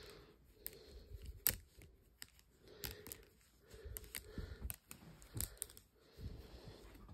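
Faint handling noise: scattered light clicks and rustles at irregular intervals, a few a second, over a low rumble.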